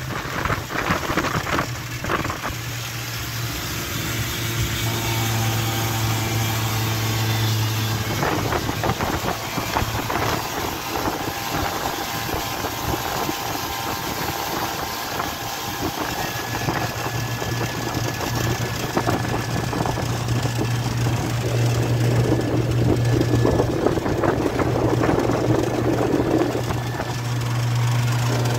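Motorboat engine running under way, a steady low hum over the rush of water and wind. The engine note weakens about eight seconds in and strengthens again a little past the middle.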